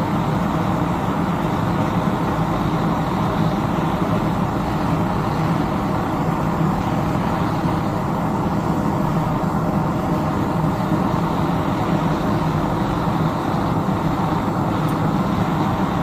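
Propane burner of a KK8 gas-fired melting kiln running steadily, an even rushing noise that does not change.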